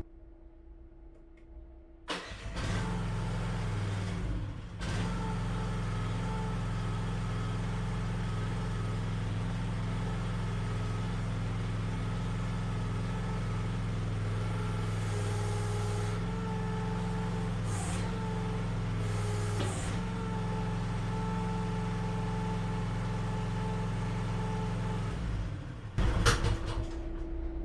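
Chinese QK16R mini excavator's engine starting about two seconds in and then running steadily. Between about 15 and 20 seconds its tone shifts several times as the hydraulics are worked to lift the boom and curl the bucket, and the sound changes abruptly near the end.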